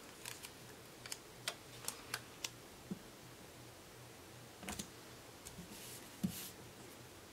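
Faint clicks and taps of fingers and nails handling sticker paper and pressing a sticker onto a paper planner page, then a short soft rub as the sticker is smoothed flat.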